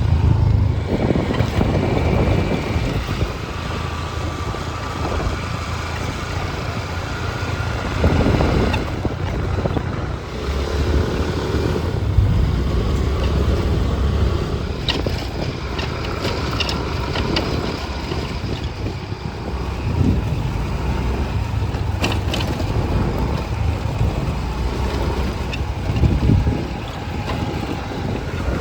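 Motor scooter running on the road, with wind rumbling across the microphone.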